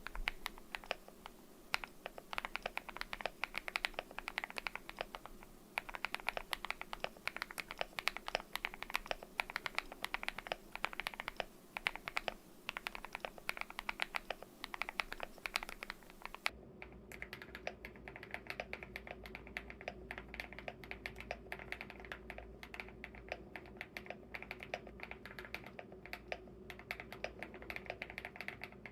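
Steady typing on a mechanical keyboard with lubed KTT Kang White v3 linear switches and Cherry-profile keycaps: a dense, irregular run of clacky keystrokes with short pauses. About halfway through, a low hum comes into the background.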